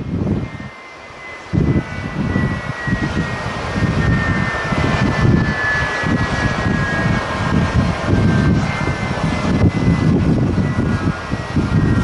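Jet airliner engine whining, a steady high tone that drifts slowly lower in pitch. Under it, strong gusty wind buffets the microphone in an irregular low rumble, easing briefly about a second in.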